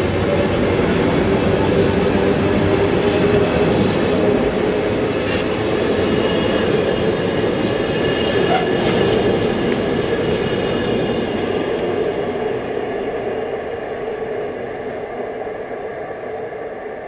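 Container wagons of a freight train rolling past on the rails: a steady rumble with a whining ring over it. The sound fades gradually over the last few seconds as the tail of the train draws away.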